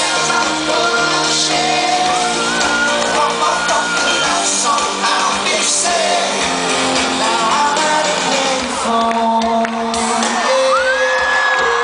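A live pop song with singing, with shouts and whoops from the audience; a long high held note comes in near the end.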